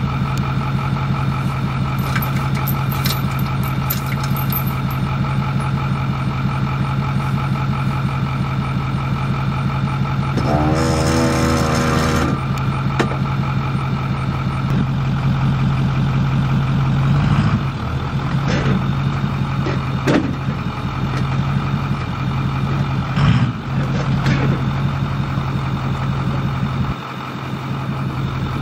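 Pickup truck engine idling steadily while the truck is eased back to a camper hitch. A short pitched sound comes about 11 seconds in, and the engine note shifts and breaks a few times in the second half as the truck moves.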